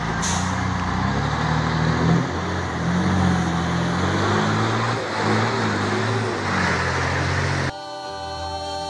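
A coach bus engine running as the bus manoeuvres on a dirt road, its low pitch wavering up and down over heavy road and rumble noise. It cuts off abruptly near the end, replaced by a choir singing with band accompaniment.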